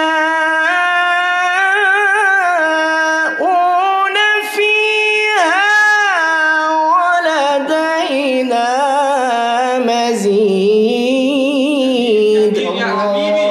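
A man reciting the Quran in melodic tajweed style, drawing out long held notes with wavering ornaments and pitch slides.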